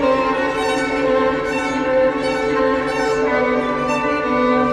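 Music of slow bowed strings, violin and cello, playing long held notes that shift every second or so.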